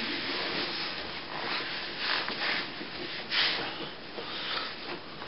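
Soft rustling and swishing of cloth hand puppets being handled and swapped, with a few louder swishes about two and three and a half seconds in.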